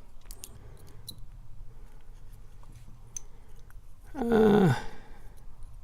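A few faint, sharp clicks and ticks of small metal lock parts being handled as a picked padlock is taken apart to remove its pins. About four seconds in, a short wordless vocal sound with a falling pitch.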